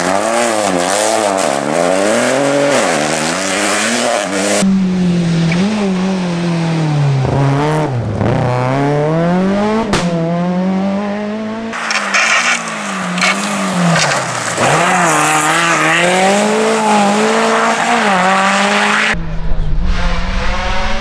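Rally car engines at full throttle, the pitch climbing and dropping again and again through gear changes and lifts as the cars pass one after another. The sound switches abruptly from one car to the next three times.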